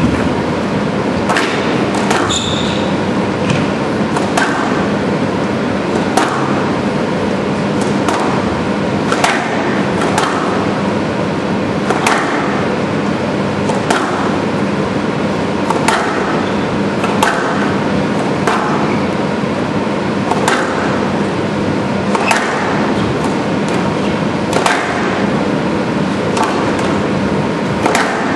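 Squash ball being struck by rackets and hitting the court walls in a long rally, a sharp crack about every second or so. Under it is a steady background noise with a low hum.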